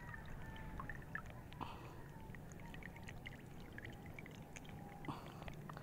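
Faint water dripping and trickling off a landing net and a freshly caught tilapia, with scattered small clicks and splashes.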